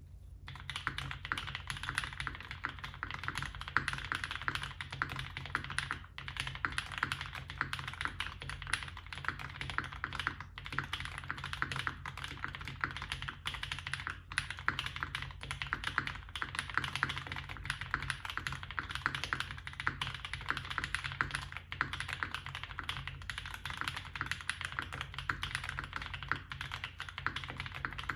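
Continuous fast typing on a Mode Eighty mechanical keyboard with lubed Cobalt POM switches, a polycarbonate plate and GMK keycaps: a dense, unbroken run of keystroke clacks, with a couple of brief lulls. A faint steady low hum lies underneath.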